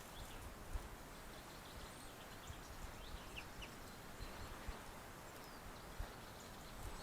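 Faint outdoor ambience: a low rumble with scattered soft bumps, and a few brief faint bird chirps about halfway through.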